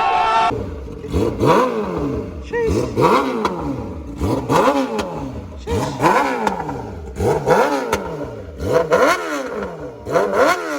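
Yamaha YZF-R6 sport bike's inline-four engine being revved in a sound check: about seven quick throttle blips, each a sharp rise in pitch falling back to idle, roughly one every one and a half seconds.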